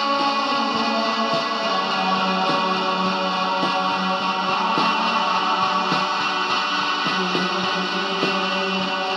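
Band music led by guitar, with sustained chords over a steady beat.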